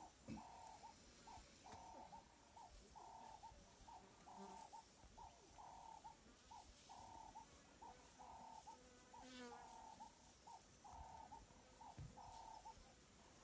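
Faint animal calling in the background: a narrow, mid-pitched note repeated about once a second, longer notes alternating with short blips.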